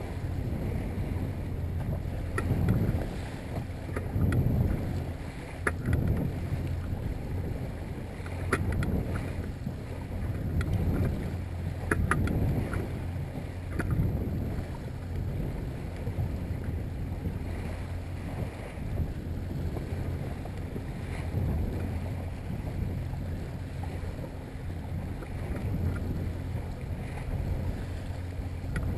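Yamaha 70 hp outboard motor running steadily at trolling speed, about 1,200 RPM, under the sound of choppy water against a small boat's hull and wind on the microphone.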